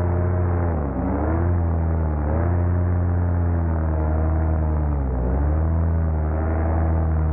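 Paramotor engine and propeller running steadily at high power, its pitch dipping briefly and climbing back about a second in and again about five seconds in.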